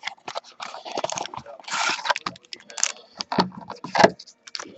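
Packaging of a sports-card box being opened and handled by hand: crinkling, scraping rustles with a few sharp clicks and knocks, the loudest knock about four seconds in.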